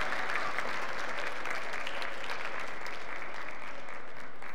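Church congregation applauding steadily, a round of many hands clapping for children who have just finished reading announcements.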